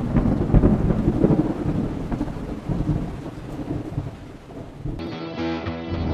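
Thunderstorm sound effect: rolling thunder over rain, dying down after a few seconds. About five seconds in, guitar music begins.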